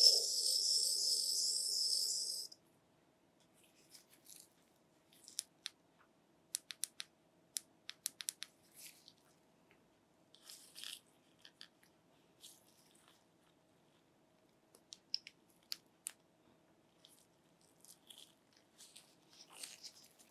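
Handling of the phone's packaging: a loud, harsh tearing noise for about two and a half seconds, then scattered small clicks, taps and rustles.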